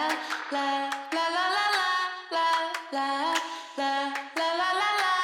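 Background music: a female voice singing held "la la" notes that step up and down in pitch, over a light instrumental backing.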